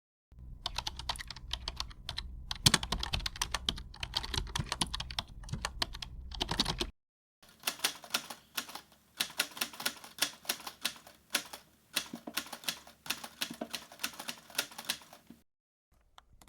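Typing on a computer keyboard: a fast, dense run of keystrokes for about seven seconds. After a brief gap comes a slower run of separate key presses, which stops about a second before the end.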